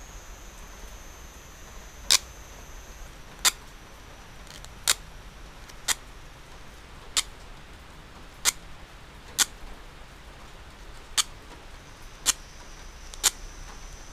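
Ten sharp, short clicks, spaced roughly one every second or so, as a small hand tool works a small piece of thin sheet metal cut from an old baking pan.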